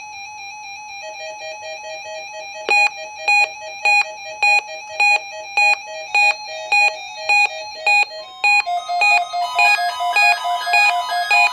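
Several emergency alert radios sounding their alarms together. A steady pulsing tone is joined about a second in by a faster beeping tone, then from about three seconds in by loud beeps a little under two a second, with more alarm tones layering on near the end.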